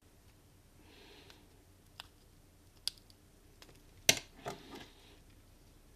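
Scattered small sharp clicks and ticks of hand tools against a smartphone's cracked screen glass and frame as the screen is pried loose, the loudest about four seconds in.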